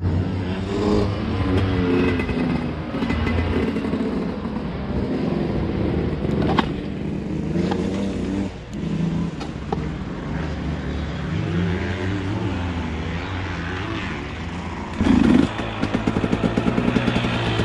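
Two-stroke motocross bike engine heard onboard, revving up and down as it is ridden hard, with a sharp knock about six seconds in and a loud burst of throttle about fifteen seconds in.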